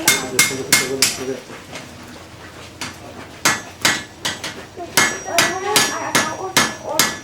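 Blacksmith's hammer striking a knife blade, forged from an old file, on an anvil: a run of about five ringing blows, a pause of about two seconds, then a longer run of blows about three a second.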